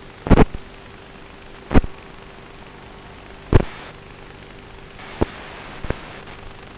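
Static hiss from an FPV video receiver's DVR recording, with a faint hum, broken by three loud crackling pops in the first four seconds and two smaller ones near the end.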